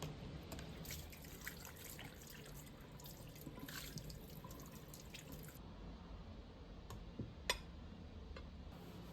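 Faint water from a sink tap as a plate is washed, with a few light knocks of the dish, the sharpest about seven and a half seconds in.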